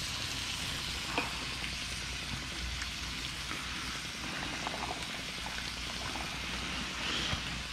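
Chicken breasts frying in a pan, a steady sizzling hiss with a light click about a second in and a few fainter ones.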